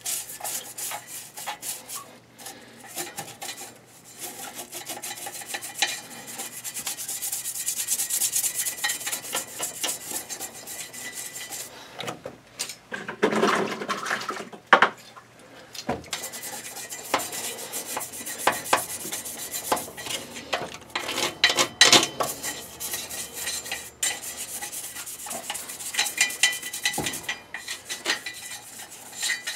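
Firm-bristle poly brush scrubbing the wet inside of a boiler's stainless steel heat exchanger, a continuous run of quick rasping strokes that loosens combustion deposits during a service. A few louder scrapes or knocks come about halfway through and again about two-thirds through.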